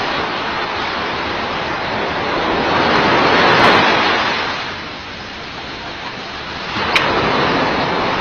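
Surf washing on a beach: a steady hiss of water that swells to a peak about three and a half seconds in, falls away, then rises again, with a sharp click near the end.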